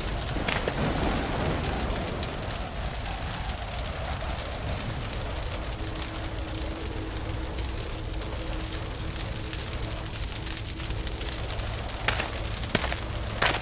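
Ambience of a burning fire: steady crackling over a low rumble, with a few sharper pops near the end and a faint held tone through the middle.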